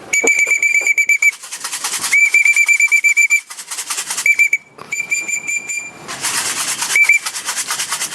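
A pea whistle blown in several trilling blasts, two of them over a second long and three short ones, calling racing pigeons down to the loft. Under it a steady fast rattle, like grain shaken in a feed tin, runs throughout.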